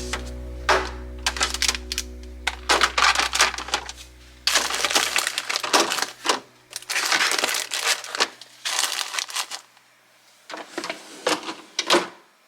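Plastic items being handled: a series of irregular crinkling, rustling bursts with a few sharp clicks. Background music fades out about five seconds in.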